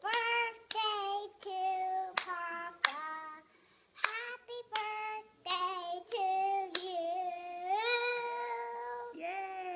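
A small girl singing in a high voice while clapping her hands, with several sharp claps falling between the sung notes.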